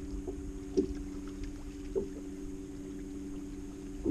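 Bass boat sitting on the water: a steady low electric hum from the boat, over a low rumble. Sharp knocks on the boat come about a second in, again around two seconds in, and near the end; the first is the loudest.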